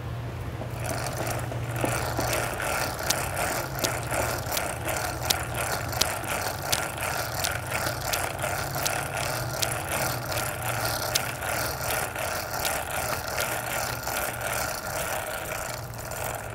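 Hand-operated lever chain hoist on a tripod, ratcheting under load as it lifts a gravestone out of the ground: a sharp click with each pump of the lever, about one and a half a second, stopping near the end.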